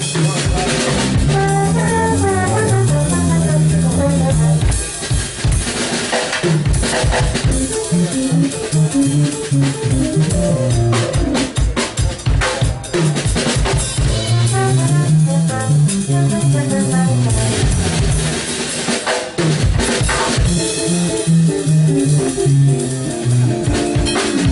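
Live jazz trio playing: a drum kit with frequent snare, rimshot and bass-drum hits, under keyboard and trombone lines.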